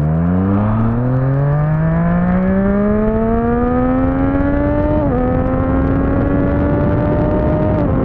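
Motorcycle engine pulling hard under acceleration, its note climbing steadily through a gear. It drops at an upshift about five seconds in, climbs again and drops at another upshift near the end, over a steady rush of wind.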